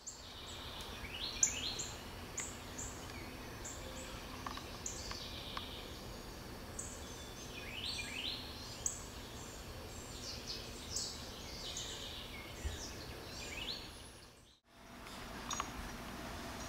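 Wild birds chirping and calling over and over in short high notes, some sliding down or up in pitch, over a steady low outdoor rumble. The sound drops out briefly near the end.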